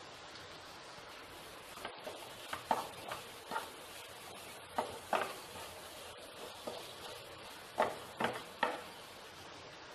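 Wooden spatula stirring and scraping onions and spice powder in a frying pan, with irregular scrapes and taps from about two seconds in, over a faint steady sizzle.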